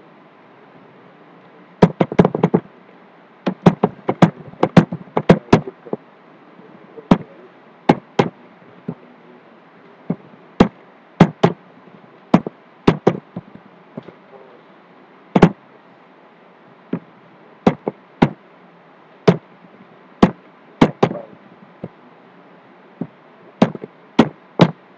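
Computer keyboard keys being struck while typing commands: sharp, irregular clicks in quick clusters about two seconds in and again a little later, then single strikes spaced about a second apart. A faint steady hiss lies underneath.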